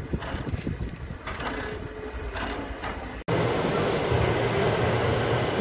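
Steam locomotive 01 1075, a German class 01.10, rolling slowly, with a run of irregular clanks and ticks from its running gear and wheels over a low rumble. About three seconds in this cuts off sharply and a steady indoor hall din with a low hum takes over.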